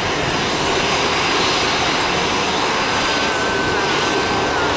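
Steady jet engine noise from an Airbus A320-232 airliner on the runway, its two IAE V2500 turbofans running.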